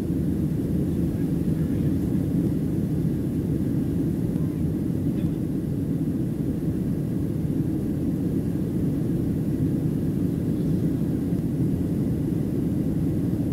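Steady low rumble of engine and rushing-air noise inside the cabin of a Boeing 737-700 climbing out after takeoff, from its CFM56-7B turbofans.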